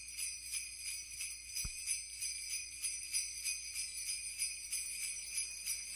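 Sleigh bells shaken in a steady rhythm, about three shakes a second, as a soundtrack intro.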